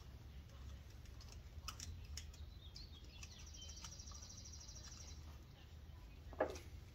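Faint scratching and light ticks of a small metal pick tool digging dirt out from around the coolant plug at the back of an LS V8 cylinder head, over a low steady hum.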